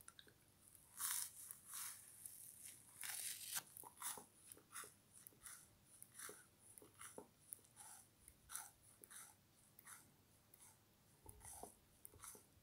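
Frozen material being crunched: a run of irregular crisp crunches and crackles. The biggest come about a second in and around three seconds, followed by many smaller crackles.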